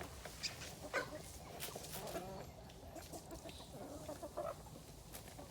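Chickens clucking, short calls now and then, with a few sharp knocks or clicks, the loudest about a second in.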